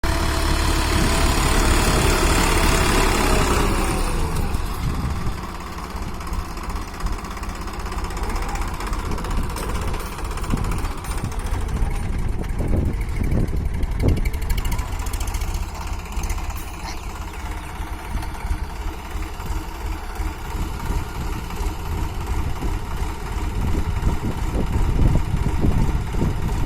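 Tractor diesel engine running, louder for the first four seconds, then easing to a steadier, lower level, with a few sharp knocks around the middle.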